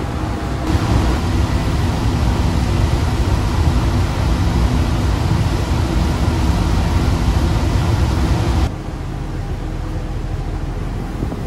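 Passenger ferry under way: a steady low engine drone under a loud broad rushing noise. The rushing drops away suddenly about nine seconds in, leaving the quieter engine hum.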